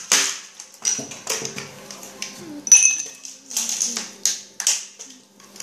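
Kitchenware being handled: an irregular run of sharp clicks and knocks, with one ringing clink of glass or metal nearly three seconds in.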